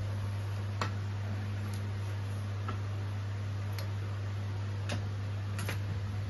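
Clothes hangers clicking against a chrome hanging hook as shirts are flipped over one by one: about six sharp, irregular clicks, roughly one a second, over a steady low hum.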